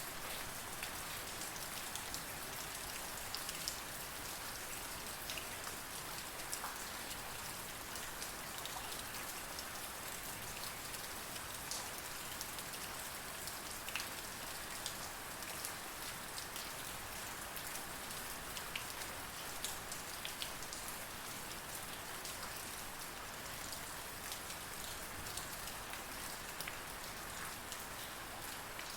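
Steady heavy rain, with many separate drop hits standing out against the constant wash. No thunder is heard.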